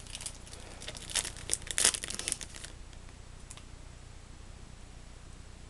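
Foil wrapper of a Yu-Gi-Oh booster pack crinkling and tearing as it is opened by hand: a rapid run of crackles that stops a little under three seconds in.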